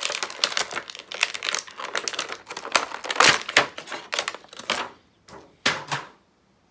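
Plastic packaging crinkling and clicking as it is handled, a dense run of crackles for about five seconds, then a few separate sharp clicks.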